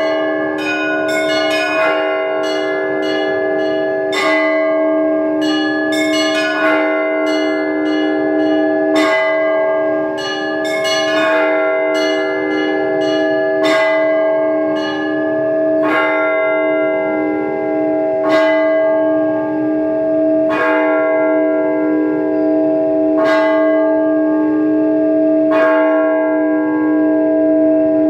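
Orthodox church bells rung by hand in a zvon: the deep bells hum on under a dense run of quick small-bell strikes over the first several seconds, then struck chords fall about every two and a half seconds.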